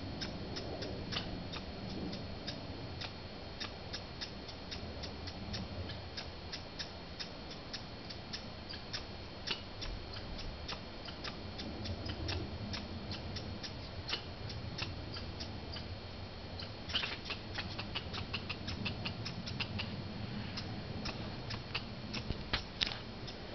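American red squirrels giving sharp, clicking calls, about three a second. The calls run into a quick burst roughly two-thirds of the way through and again near the end.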